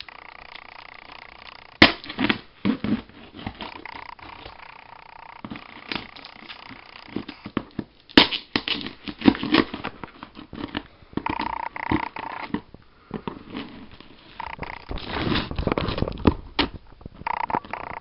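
Packing tape being cut and peeled off a cardboard shipping box: scraping, clicking and rustling of cardboard, with a longer tearing stretch near the end.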